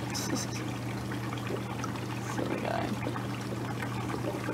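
Hot tub jets bubbling and churning the water, over a steady low hum.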